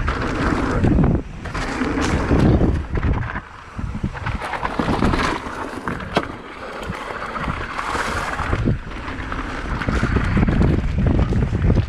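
Wind buffeting the microphone over the rumble of an electric mountain bike's tyres rolling fast down a rough dirt trail, with a few sharp knocks from the bike hitting rocks and roots.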